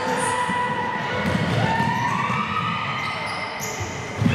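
Basketball bouncing on a gym floor, with dull thuds about a second in and just before the end. Under it runs a steady high-pitched tone that steps up in pitch about a second and a half in.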